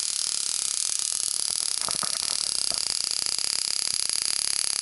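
Homemade high-frequency spark gap for TIG arc ignition, driven by a high-voltage ignition coil through a ferrite coil, sparking continuously: a loud, steady, high-pitched crackling hiss made of very fast clicks.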